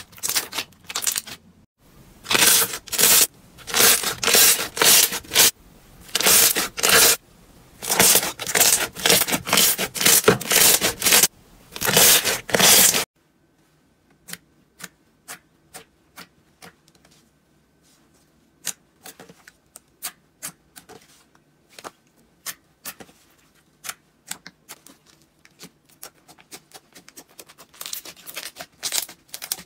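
Slime being squeezed and worked by hand, crackling and popping in quick, loud bursts; about halfway through it changes to much quieter, scattered little clicks and pops of slime.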